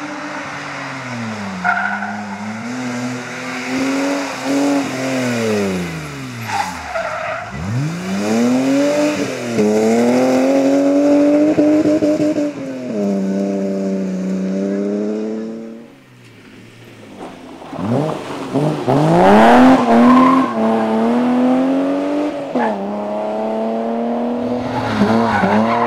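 BMW E30 325i rally cars' 2.5-litre straight-six engines revving hard up through the gears and dropping back off the throttle as they pass, one after another. The sound dips briefly about two-thirds of the way through, then the loudest pass follows.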